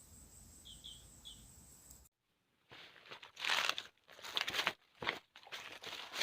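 Crunching footsteps in irregular bursts, starting about two and a half seconds in, after a few faint high chirps.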